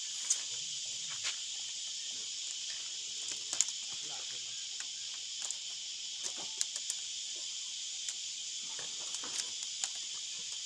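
Thin bamboo strips clicking and rustling irregularly as they are woven into a bamboo chicken basket, over a steady high-pitched insect chorus.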